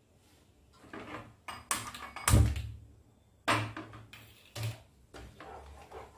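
Several separate knocks and clicks as a glass-top gas stove burner is switched on and lit and a wooden spatula is taken up in a frying pan. The loudest, a dull knock, comes about two and a half seconds in.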